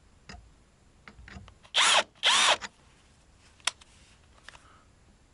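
Electric drill run in two short bursts, a little under two seconds in and again just after, its motor speeding up and slowing down each time, with a few light clicks and knocks around them.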